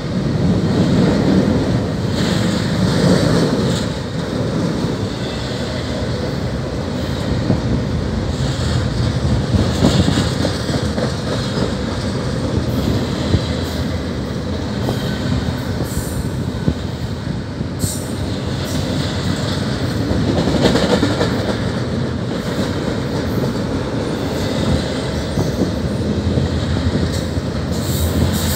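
Freight train container well cars rolling past: a steady rumble of steel wheels on rail, with scattered sharp clicks and clanks from the wheels and couplings.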